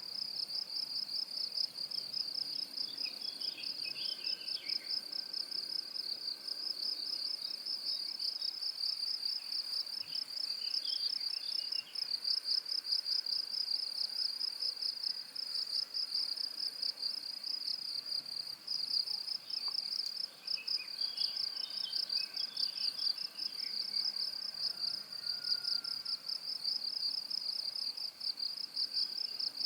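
Crickets trilling continuously, a high, rapidly pulsing trill that never breaks. Faint, lower chirps come and go beneath it a few times.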